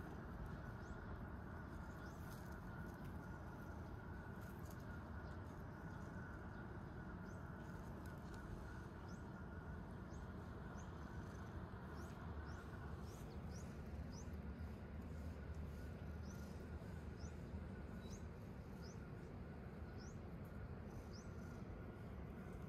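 Small birds chirping in short, high, rising calls, about one a second, over a steady low outdoor rumble.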